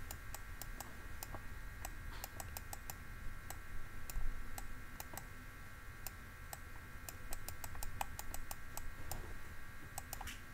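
Light, irregular clicks and taps of a stylus on a drawing tablet during handwriting, over a faint steady electrical whine.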